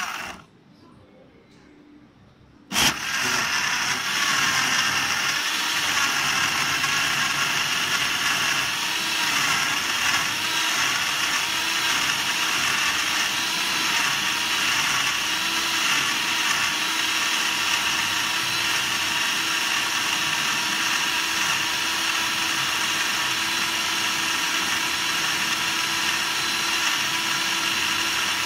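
Vacuum blender starting up with a click about three seconds in, then running at a steady, high whine.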